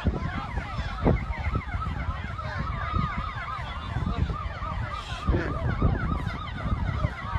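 Several emergency-vehicle sirens yelping at once, their rapid rising-and-falling tones overlapping, over a low rumbling noise with scattered knocks.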